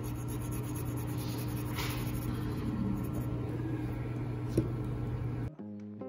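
Steady electrical hum with room noise, and light tapping of a stylus on an iPad screen, with one sharper tap about four and a half seconds in. Soft background music takes over near the end.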